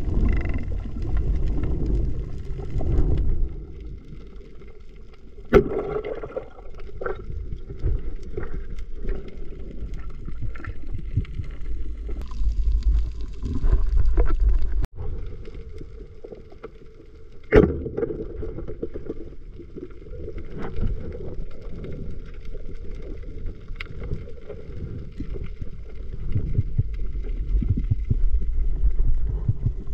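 Underwater noise of water moving against the camera housing, a steady low rumble, broken by two sharp knocks about five and a half and seventeen and a half seconds in.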